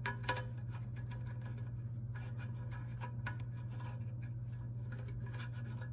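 Plastic parts of a toilet tank lever being handled and fitted: a couple of sharp clicks right at the start, then light scattered clicks and rubbing, over a steady low hum.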